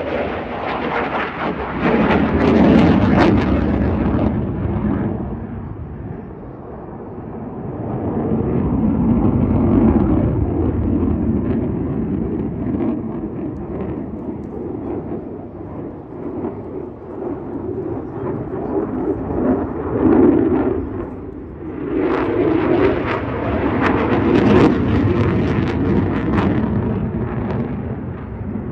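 Fighter jet's engine noise in a display flight, swelling and fading several times as the jet passes and turns. It is loudest and crackling about two seconds in and again near the end.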